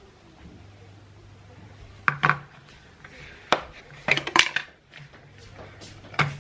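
Dishes and utensils clinking and knocking in a handful of separate strikes, with a quick cluster of clatter in the middle, over a faint low hum.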